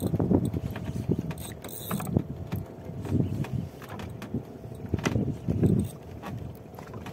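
Fishing reel being cranked hard to reel in a hooked fish, its gears clicking and rattling in uneven bursts.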